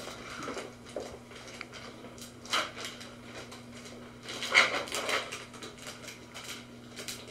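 A steady low electrical hum, with scattered soft clicks and rustles of handling; two louder clusters come about two and a half seconds in and just before five seconds.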